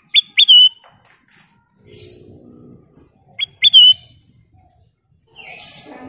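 Ruby-throated bulbul (kutilang emas) calling twice, about three seconds apart: each call is a quick pair of rising chirps that runs into a falling slurred whistle. A soft rustle follows near the end.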